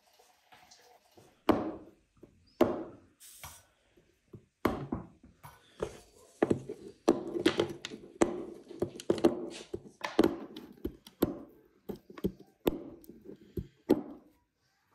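A small metal hammer knocking on brittle yellow slabs in a wooden box, breaking them up. The knocks are sharp and irregular, spaced out over the first few seconds, then rapid and crowded together until near the end.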